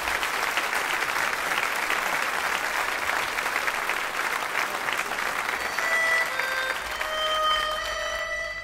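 Theatre audience applauding. The clapping eases off about six seconds in as held musical notes begin.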